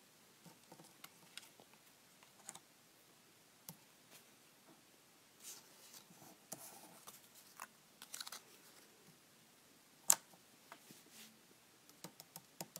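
Paper cut-outs being handled and slid about on a paper prototype: scattered faint rustles and light taps, with one sharper tap about ten seconds in.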